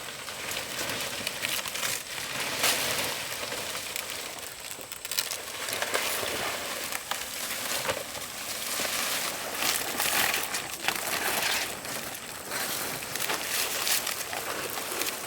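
Dry leaves rustling and crackling as they are handled, with scattered light clicks and knocks.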